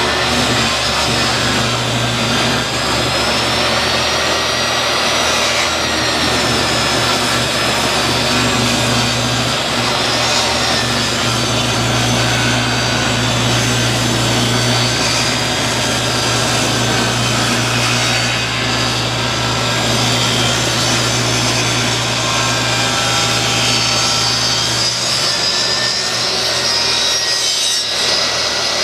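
DeWalt 10-inch portable table saw ripping a 2x4 lengthwise into 1x4s: the motor runs steadily and loudly while the blade cuts through the wood, with a high whine that wavers in pitch as the cut loads it.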